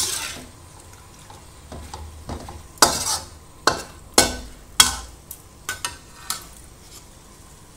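Metal spatula stirring and tossing stir-fry in a wok. It strikes the pan loudly once at the start, then scrapes and clanks in a quick run of about eight strokes.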